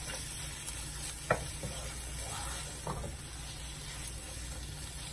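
Boneless chicken pieces sizzling in masala in a frying pan while a wooden spatula stirs and scrapes them round, with a couple of sharper knocks of the spatula against the pan.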